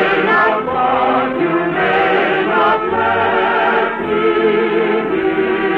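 A choir singing with sustained, wavering notes over orchestral accompaniment. It is an old radio recording with the high end cut off, so it sounds dull and boxy.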